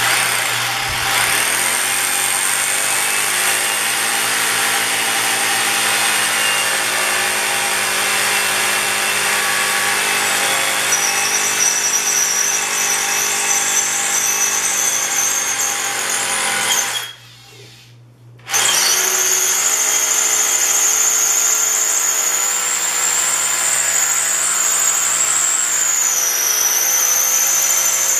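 SDS hammer drill boring a hole into a 6-inch concrete floor slab, running steadily. About two-thirds of the way through it stops for a second or two, then starts again.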